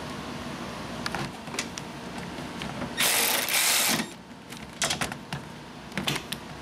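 Cordless ratchet running in one burst of about a second, snugging down a strut top mount nut, followed by a few light clicks.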